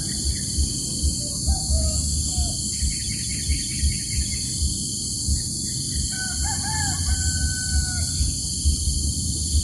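A rooster crowing once in the background, a long call about six seconds in that rises, dips and ends on a held note. Shorter bird calls and a quick run of high notes come earlier, over a steady high hiss.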